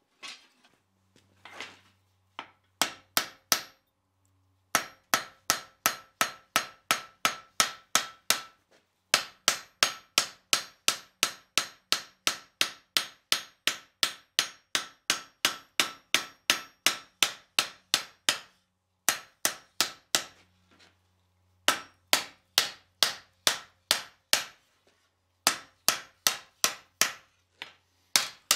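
Blacksmith's hand hammer striking red-hot steel bar on an anvil. Quick blows about three a second, in runs broken by short pauses, each with a brief metallic ring.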